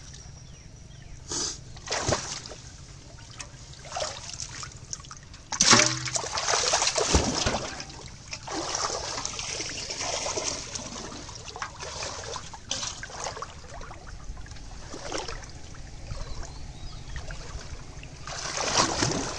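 Shallow pond water splashing and sloshing in irregular bursts as hands grope through it for fish, with the biggest splash about six seconds in and another burst near the end.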